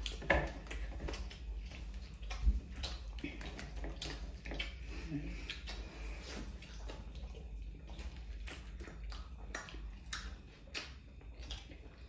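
Two people eating paratha with their hands: wet chewing and mouth smacks, the tearing of flatbread and many small clicks of fingers and food against metal platters, over a steady low hum.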